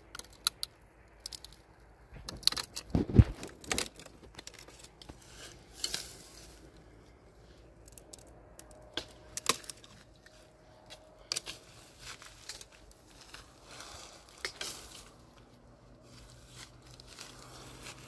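Irregular clicks, crinkling and rustling, with a louder thump and clatter about three seconds in.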